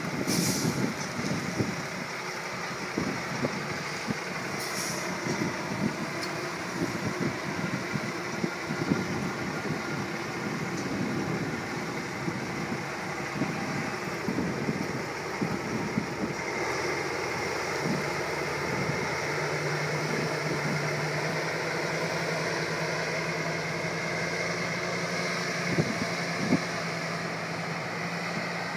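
Loaded log truck's diesel engine running as it turns around, with short air-brake hisses near the start and again about five seconds in. In the last third the engine settles into a steadier hum.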